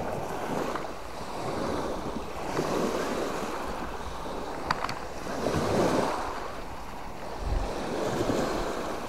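Small Mediterranean waves washing in and out on a stone beach, swelling and falling back in several surges a couple of seconds apart.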